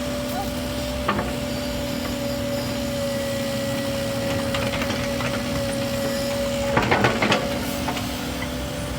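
Excavator working: its engine and hydraulics run steadily with a constant whine over a rumbling noise. A short burst of knocks comes about seven seconds in, where the higher whine drops away.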